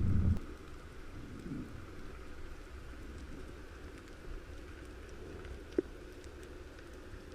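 Underwater ambience: a faint steady hiss with scattered small clicks and crackles. A loud low rumble cuts off about half a second in.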